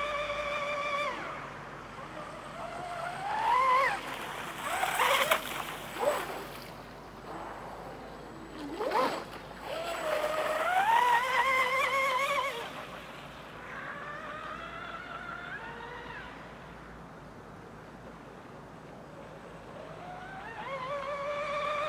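Electric motor of a Psychocat Evo RC catamaran speedboat, running on a 4S battery and whining at high speed. The pitch drops, then climbs again in several surges of throttle, with a few short bursts of hiss around five to six seconds in. It fades low for a few seconds, then rises again near the end.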